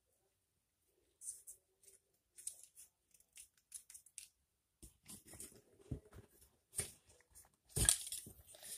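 Scattered small clicks and rustles of hands fiddling with a pen and a small object close to the microphone, with a heavier thump near the end.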